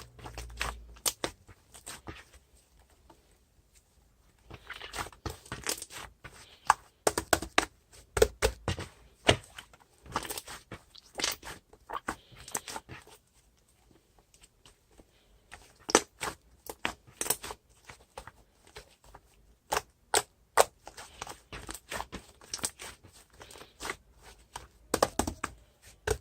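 Irregular clicks and crackly rustling in bursts, with short quiet gaps between them, like things being handled close by.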